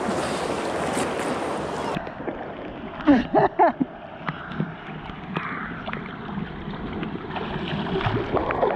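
Fast-flowing creek water rushing over small rapids, heard from right at the water surface, with a few short loud bursts about three seconds in and splashing near the end.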